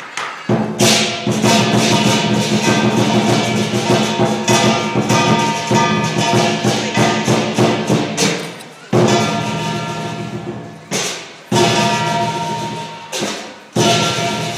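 Lion dance percussion: drum, clashing cymbals and gong beaten in fast, dense strikes with ringing metal. It keeps going without a break for about nine seconds, then comes in short bursts with brief gaps.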